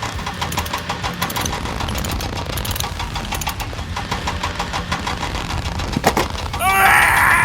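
Engine sound of a radio-controlled model construction truck running steadily, with a fast, even knocking beat. About six seconds in there is a sharp click, and near the end a loud pitched sound rises in pitch.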